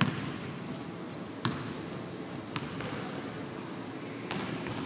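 Basketball bouncing on a hardwood gym floor: four separate sharp thuds, irregularly spaced, ringing out in a large empty arena.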